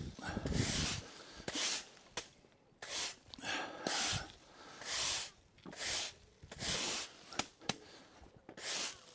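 Broom sweeping cut hedge clippings across a driveway: short scratchy swishes of the bristles, about one stroke a second, with a few small clicks of twigs.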